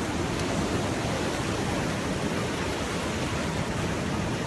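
Fast-flowing muddy flash floodwater rushing in a steady, even noise.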